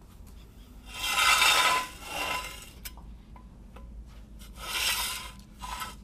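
Floor jack being pushed across a concrete floor under the car: scraping, rubbing noises, the loudest about a second in, another near the end, with a few light clicks between.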